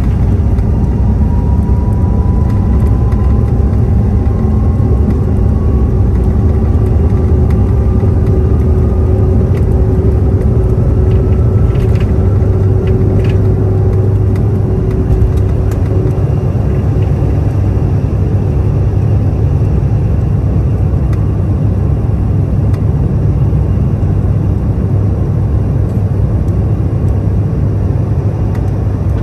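Cabin noise of a Bombardier CRJ-700 on its takeoff roll and lift-off: the rear-mounted General Electric CF34 turbofans at takeoff thrust over a loud, steady rumble. A whine climbs slowly in pitch over the first dozen seconds, and a few sharp clicks come about twelve seconds in.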